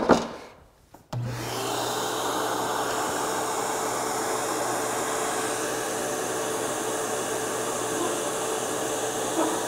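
A motor switches on about a second in, spins up and runs steadily with an airy whir and a low hum, without cutting.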